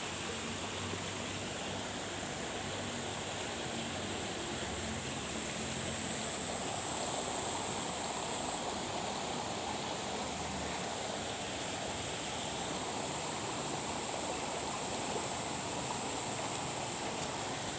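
Steady rushing of running water, even throughout, with a thin high-pitched whine held above it.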